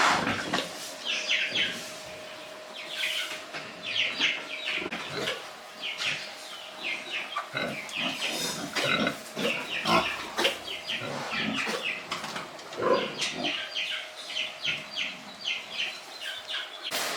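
Pigs grunting and squealing in many short, rapid calls, with a faint steady hum underneath.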